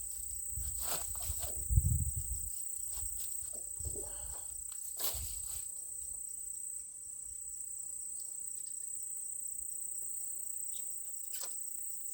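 Bolt threads scraped and knocked against a lead battery terminal, used as a file to clean off oxidation, in scattered strokes over the first half. A steady high-pitched insect trill runs underneath throughout.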